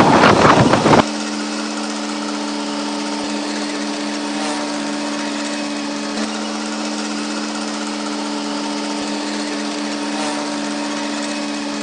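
A loud rushing noise cuts off about a second in. It is followed by a steady, unchanging mechanical drone like a running engine, holding the same pitch throughout.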